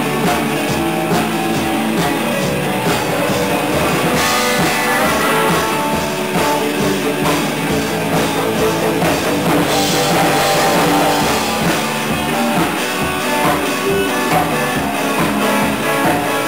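A rock band playing together: electric guitars over a drum kit keeping a steady beat with cymbals.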